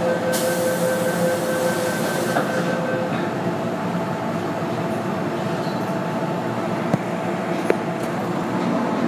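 Running noise of an MTR modernised M-train heard inside the car: a steady rumble of wheels on track and the train's machinery. A steady tone and a high hiss sound over the first two to three seconds, and two short clicks come near the end.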